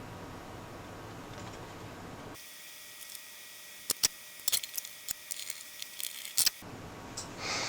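Low room noise, then a thin hiss with a series of sharp small clicks and taps, like small tools or parts being handled on a workbench.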